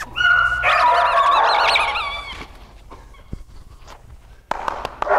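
A dog whining in excitement during play, high-pitched with a wavering pitch, for the first couple of seconds, then fading; a louder rustling, scuffling sound starts near the end.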